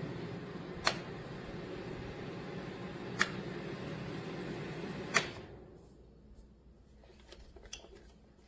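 Small ceramic space heater's fan running with a steady hum and airy hiss, broken by three sharp clicks about two seconds apart. Right after the third click the fan winds down over about a second and stops, leaving a few faint ticks.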